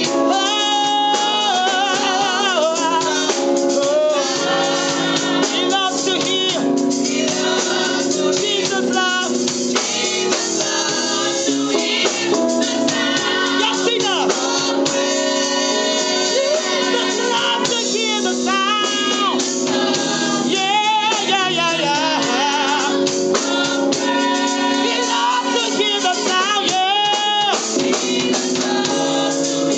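Gospel praise team singing over instrumental backing, with voices that waver and slide over steady held chords.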